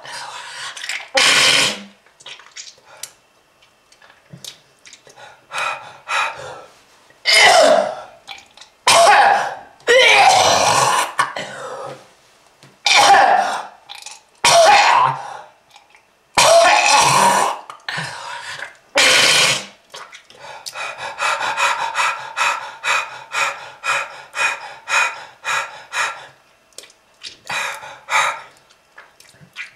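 A smoker's harsh, hacking coughs and throat-clearing in separate bouts, then a long run of short wheezing coughs, about two a second, in the last third.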